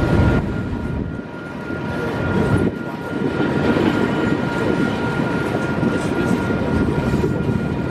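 Union Pacific diesel freight locomotive approaching at track speed, its engine a steady rumble with a thin high whine over it.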